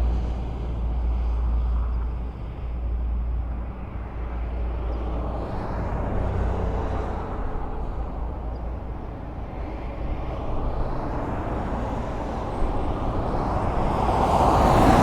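Highway traffic: a steady rumble of cars and tyres on the road, with vehicles swelling past, the loudest pass building near the end.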